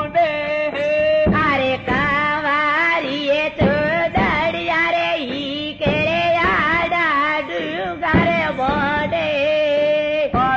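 A song: a singer holding long wavering, ornamented notes over instrumental accompaniment, with a few sharp drum strokes.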